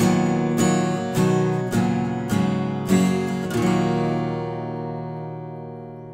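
Acoustic guitar strummed in an even rhythm, about six strums, then a final chord left ringing and slowly fading away as the song ends.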